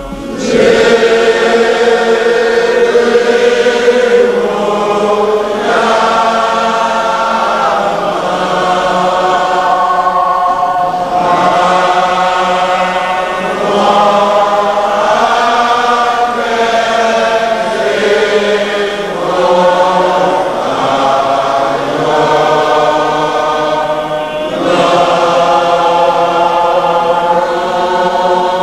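Many voices singing a hymn together, in long held phrases a few seconds each with short breaths between them.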